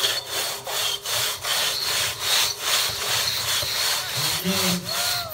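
Two-man crosscut saw being pulled back and forth through a log, a steady rasping cut in quick, even strokes.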